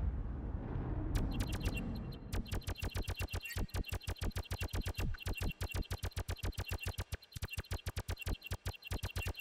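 Electronic soundtrack music. A low rumble fades out over the first two seconds, and from about a second in a fast, even train of clicks runs at about seven a second, with a high chirping tone riding on it.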